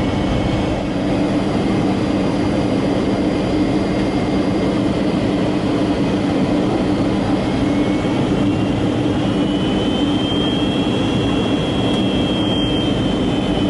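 Steady in-flight cabin noise of a Boeing 757-200 from a passenger seat: a constant jet engine hum under an even rush of air. A faint thin whistle joins about two-thirds of the way through.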